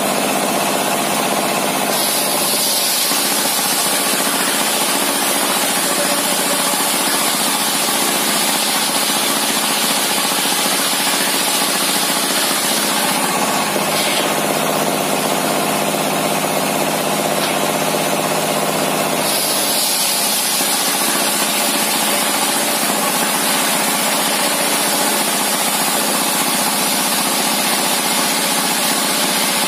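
Homemade diesel-driven circular saw bench running steadily while ripping a large timber beam lengthwise into boards. The blade's high cutting hiss comes in about two seconds in, drops away for several seconds in the middle, and comes back as the next pass is fed through.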